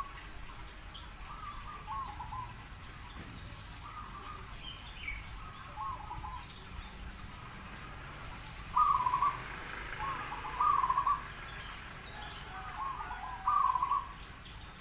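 Zebra dove (perkutut) cooing: short, warbling coo phrases repeated every one to three seconds, the loudest three coming in the second half.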